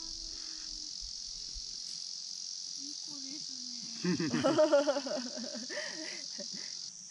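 Steady, high-pitched chirring of insects in the grass. About four seconds in, a person's voice breaks in briefly over it.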